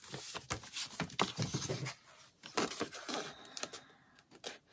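Paper being handled: book pages and printed sheets rustling and sliding on a cutting mat in a series of short rustles, with a brief pause about two seconds in.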